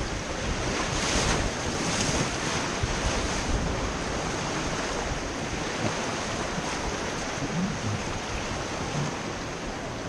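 Rushing whitewater of river rapids around an inflatable raft, a steady, even rush, with wind noise on the microphone.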